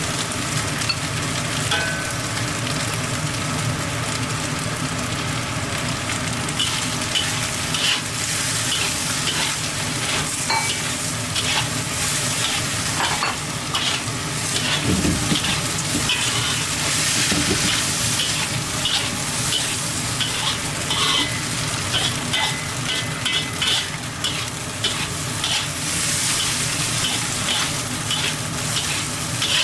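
Food sizzling in a hot pan as it is stir-fried, with frequent scrapes and clicks of a spatula against the pan, over a steady low hum.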